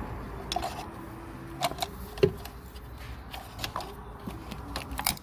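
Irregular light clicks and knocks of hard plastic and metal as a tight ignition coil pack is worked loose from the engine, with a faint squeak that comes and goes.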